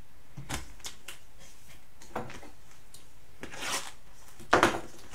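Hands handling a cardboard hobby box of trading cards and its packaging: a few short rustles and taps, the loudest a quick pair of sharp ones near the end.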